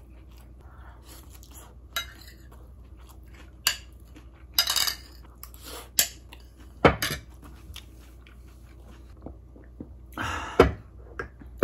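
Eating at close range: chewing, with metal cutlery clicking and scraping against a ceramic bowl now and then. A louder clunk comes near the end.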